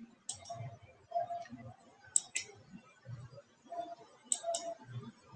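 Faint clicking at a computer: three pairs of short sharp clicks about two seconds apart, over low muffled room noise.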